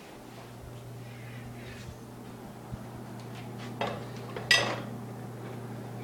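Kitchen clatter: a knock and then a sharp clink of dishes with brief ringing about four and a half seconds in, with a few small clicks over a steady low hum.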